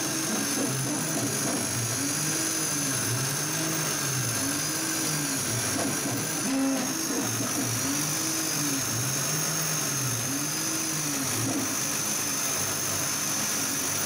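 Laser engraver at work: the stepper motors driving the head whine, the pitch rising and falling about once a second as the head speeds up and slows down along each engraving stroke, over a steady hiss of air.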